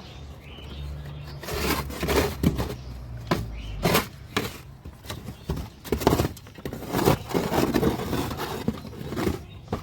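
Irregular knocks, clicks and scraping from hands-on repair and cleaning work on a rabbit hutch.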